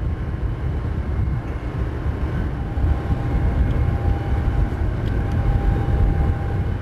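Steady low mechanical rumble, with a faint steady whine coming in about two and a half seconds in.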